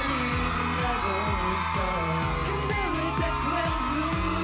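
Live K-pop boy-group performance: male voices singing a melodic line over a dance-pop backing track with a steady beat.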